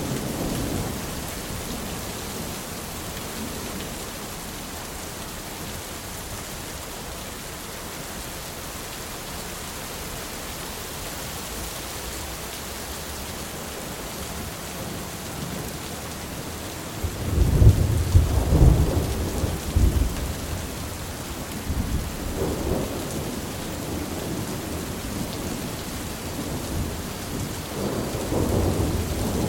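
Steady rain hiss with rolling thunder: a rumble fades out over the first couple of seconds, a loud crack and rumble of thunder comes a little past the middle, a weaker rumble follows a few seconds later, and another builds near the end.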